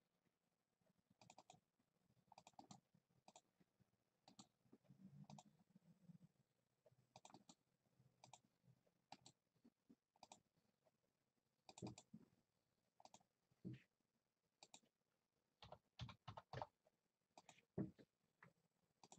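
Faint, irregular clicking of a computer keyboard and mouse, with single clicks and short runs of key presses, as names are typed into a list.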